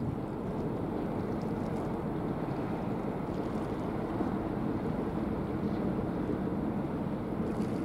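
Steady low rumble of vessels under way on the water, mixed with wind buffeting the microphone.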